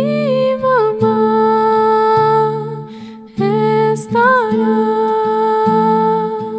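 A woman singing a slow lullaby over her own fingerpicked nylon-string classical guitar: two long sung phrases with held, wavering notes, the second beginning about halfway through.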